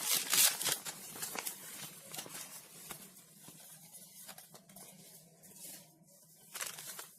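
Rustling and crinkling from packaging being handled, dense at first, then sparser, with a short burst of rustle near the end.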